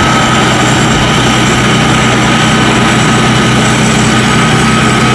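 Tracked Kaset Pattana rice combine harvester running steadily under load while cutting and threshing rice: its engine runs with a steady high whine above it.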